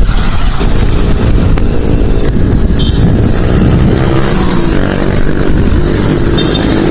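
A motor vehicle engine of road traffic running close by, its steady note growing clearer about halfway through, over wind noise on the microphone.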